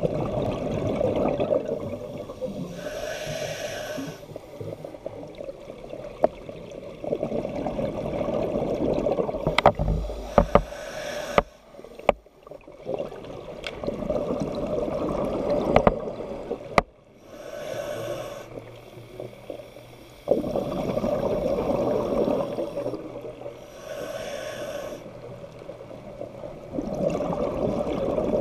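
Scuba diver breathing through a regulator, heard underwater: about four breaths, each a short hissing inhale followed by a longer rumble of exhaled bubbles. A few sharp clicks fall in between.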